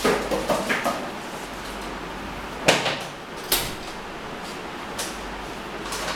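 A quick flurry of light knocks in the first second, then two sharper clacks near the middle, over a steady hiss.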